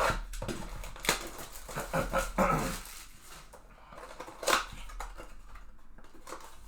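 A dog barking a few times in short, separate barks.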